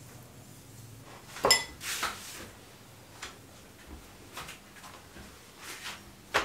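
A metal spoon clinks against a glass bowl with a brief ring about a second and a half in. Softer knocks and rustles of hands working dough and flour on a wooden board follow, with another sharp knock near the end.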